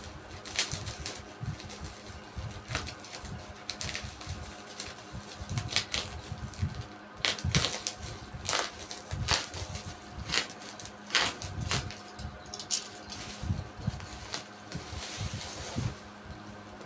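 Black bubble-wrap packaging crinkling and crackling as it is cut open and pulled off a boxed tripod, with irregular sharp snaps and rustles.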